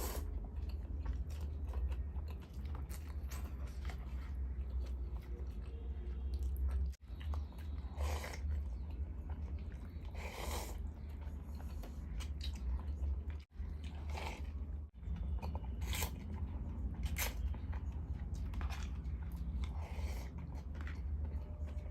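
A person chewing and biting food close to the microphone, with many small wet mouth clicks and a few louder short noisy sounds spread through, over a steady low hum.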